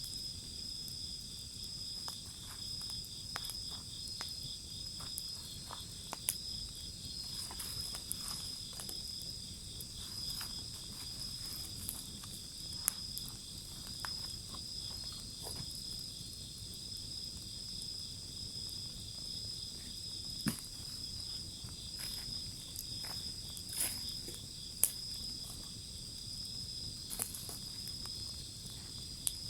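A wood fire crackling, with scattered sharp pops, the loudest about 6, 13, 20 and 25 seconds in, over a steady high trill of crickets.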